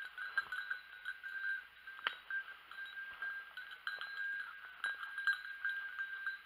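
A hunting dog's bell ringing almost continuously in irregular jangles as the dog works through the cover, with a few sharp snaps of twigs or undergrowth, the clearest about two seconds in.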